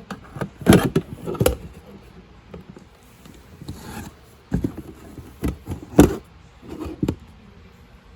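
Handling knocks from an OP-903 digital scale being turned over and set down on a work surface: several sharp knocks with a short scraping slide in the middle.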